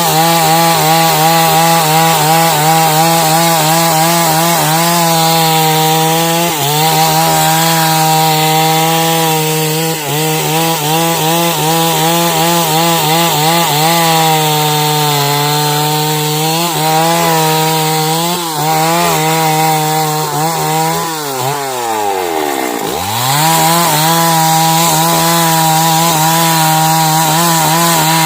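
Two-stroke chainsaw held at full throttle, cutting lengthwise through a log to saw out beams, its pitch wavering slightly as the chain loads in the wood. About three quarters of the way through, the engine drops sharply off throttle and revs straight back up.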